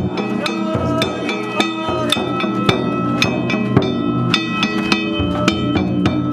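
Danjiri festival music (narimono): hand-struck gongs rung in a rapid, irregular beat of several strikes a second, each stroke leaving a bright metallic ring, over drumming.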